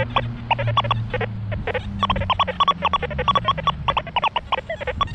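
Metal detector audio chattering rapidly over ground thick with iron: short beeps at shifting pitches, several a second, as the coil passes over buried nails and iron scrap. A low steady hum runs underneath.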